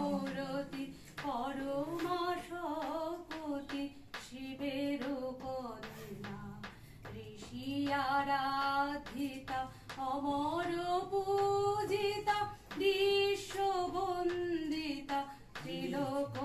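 A woman singing solo and unaccompanied: a slow melody with long held notes.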